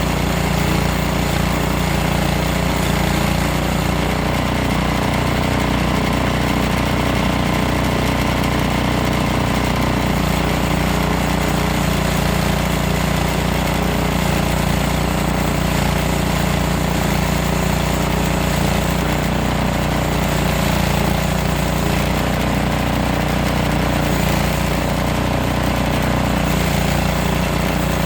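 A portable sawmill running steadily under power, its engine drone loud and continuous while milling a hardwood log, the low hum shifting slightly a few times.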